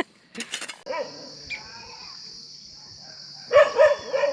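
Insects chirring in a steady high drone that starts about a second in, with a few short, high-pitched calls near the end.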